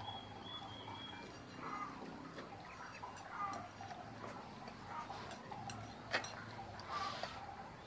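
Scattered light clicks and clinks of spoons and plates being handled during a meal, with a few sharper taps in the middle and later on.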